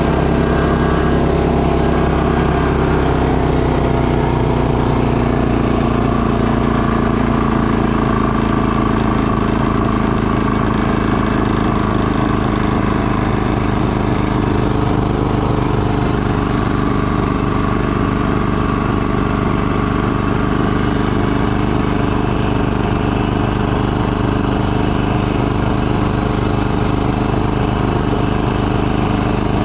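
Two-stage snowblower engine running steadily under load while it clears snow, throwing it out of the chute.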